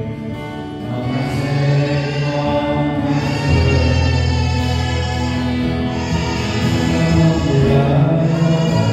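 A group of voices singing a worship song over a steady low accompaniment, with long held notes.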